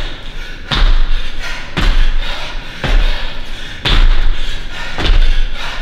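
Feet landing hard on a gym floor during jump squats and lunge jumps done holding dumbbells: a heavy thud about once a second, five in all.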